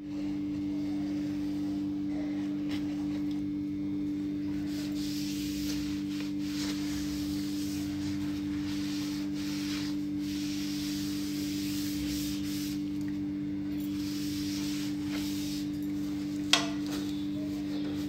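A tissue or cloth rubbing over the non-stick plate of an electric roti maker, a rough hiss that swells and fades with the strokes, over a steady low hum. One sharp click near the end.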